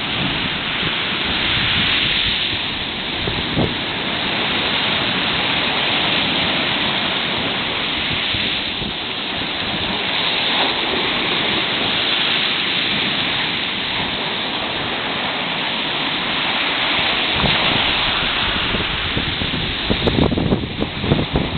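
Sea surf washing onto the shore as a steady rush that swells and eases every few seconds, with wind buffeting the microphone near the end.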